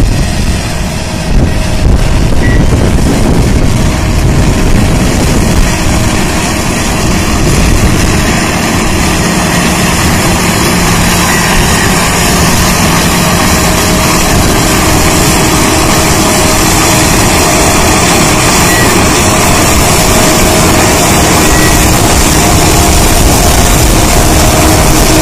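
Dewulf Kwatro self-propelled harvester lifting chicory roots, its engine and lifting machinery running with a loud, steady mechanical noise.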